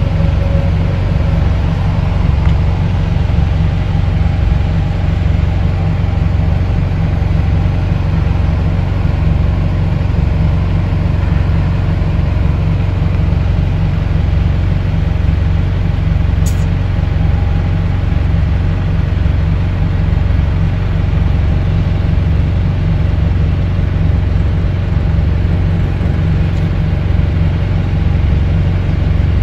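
Steady low engine rumble with a regular throb, heard from inside a running vehicle's cab. A single short tick about sixteen seconds in.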